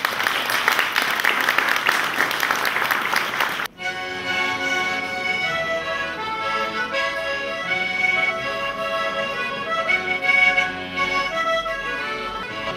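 Audience clapping for about four seconds, then, after an abrupt cut, an accordion playing a folk tune.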